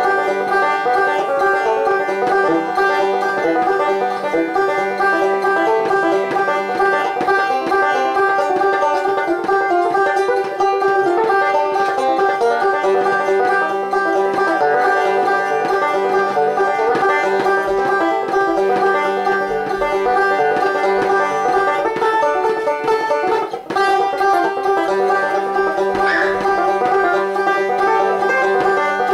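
Epiphone five-string banjo picked steadily in a quick run of plucked notes, noodling freely rather than playing a set tune, with one brief break about three-quarters of the way through.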